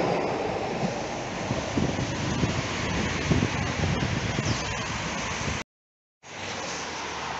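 Rushing outdoor noise of wind on the microphone and road traffic, with a tram rolling away along the tracks and fading. About five and a half seconds in the sound cuts out completely for half a second, then returns as steady street noise.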